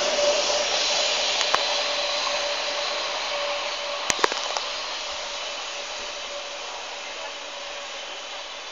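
Renfe class 447 electric multiple unit pulling away and receding: a steady rushing noise with a faint steady whine, fading gradually. A few sharp clicks come about a second and a half in and again around four seconds.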